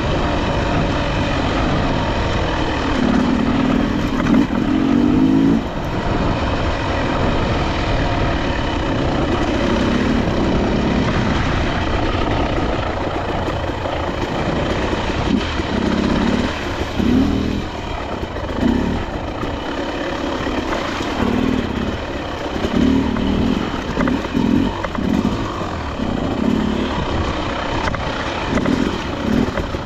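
Dirt bike engine running as it is ridden along a trail, with a steady rumble. In the second half the throttle opens and closes in short bursts.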